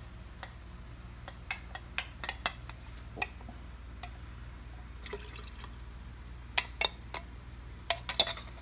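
Cornstarch slurry poured from a glass measuring cup into broth in a stainless steel Instant Pot inner pot, with dripping and scattered sharp ticks. Louder clinks of glass on the pot come near the end, over a steady low hum.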